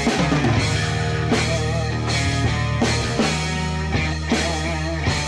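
Rock music with a drum kit keeping a steady beat over a sustained bass line.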